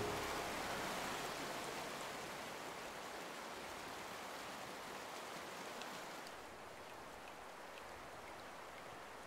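Water rushing over rocks in a shallow mountain stream, a steady hiss that becomes quieter and duller about six seconds in.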